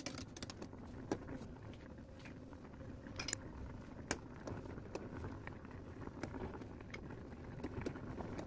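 Steel tongs, ladle and spoon clinking and tapping against a stainless steel saucepan as scum is skimmed from simmering fish broth. A dozen or so sharp taps are scattered over a low, steady bubbling.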